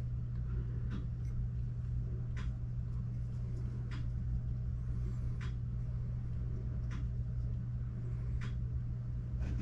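Steady low background hum, with a few faint light clicks as a paper gasket and a small rubber diaphragm are fitted by hand onto a carburetor's metal side cover.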